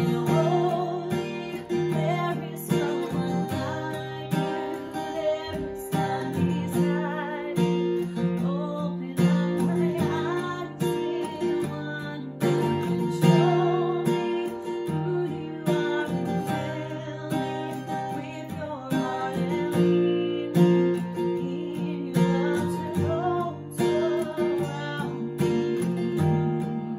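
Worship song: a woman singing with a strummed acoustic guitar accompaniment.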